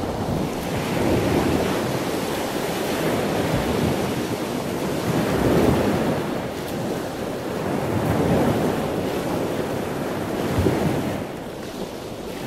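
Wind rushing over the open deck of a ship at sea and buffeting the microphone, swelling and easing in gusts every few seconds.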